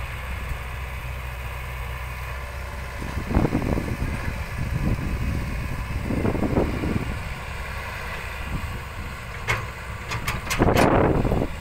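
Komatsu PC hydraulic excavator's diesel engine running steadily, with louder surges three times, the last and loudest near the end, and a few sharp knocks just before it.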